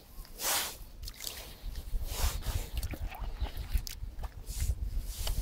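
Bream being let go into shallow river water: a short splash about half a second in, then small sloshing and dripping of water, over a low rumble on the microphone.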